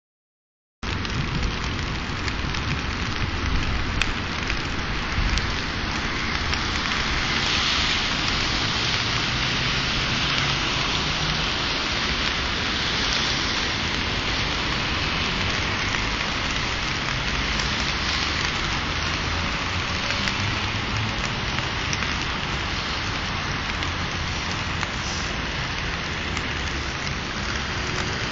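Steady hiss of rain, with an unsteady low rumble underneath.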